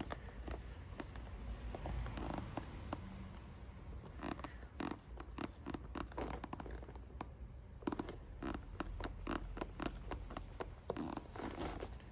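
Hand work on a leather boot: irregular scraping and rustling with many scattered small clicks and taps.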